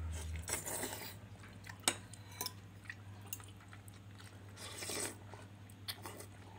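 A person eating miswa noodle soup from a spoon: two short noisy slurps, one near the start and one about five seconds in, with a few light clicks of the spoon and fork against the plate.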